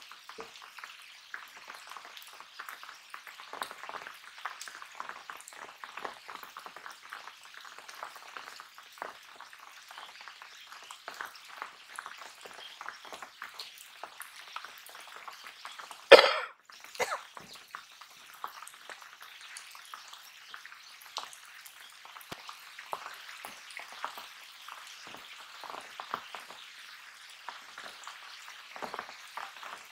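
Rain falling on open water and waterside plants: a steady crackle of many small drops. One loud, sharp noise breaks in about halfway through.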